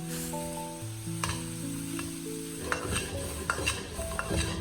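Pieces of toasted flatbread being stir-fried in hot lard in a wok: a light sizzle, with the spatula stirring and giving a few short scrapes and ticks against the pan. Soft background music with held notes plays underneath.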